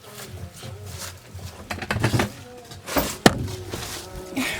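A few sharp knocks and clatters, the loudest pair about three seconds in.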